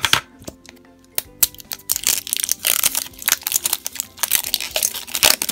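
Thin plastic shrink wrap being torn and peeled off a plastic toy jar by hand, crinkling and crackling. The crinkling grows dense about two seconds in.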